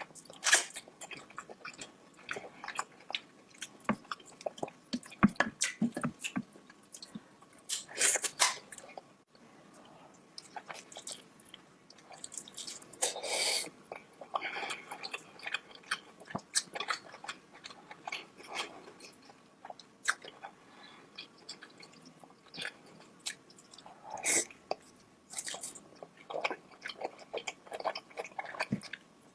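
Close-miked chewing and biting of sauce-covered seafood and corn: irregular wet smacks and clicks, with a few louder bites about 8, 13 and 24 seconds in.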